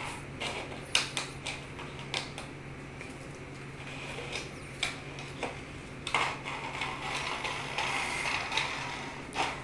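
Clear plastic dome lid of a Coolatta cup clattering and scraping across a tile floor as a ferret pushes it with its nose, in irregular clicks and short scrapes.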